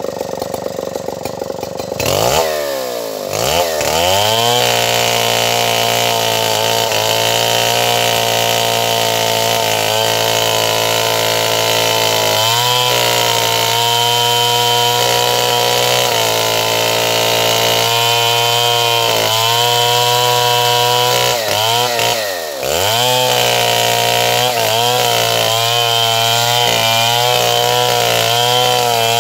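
Stihl 070 two-stroke chainsaw revving up a couple of seconds in, then held at high revs while cutting wood, its pitch wavering with the load. About three-quarters of the way through the revs drop sharply for a moment and pick up again.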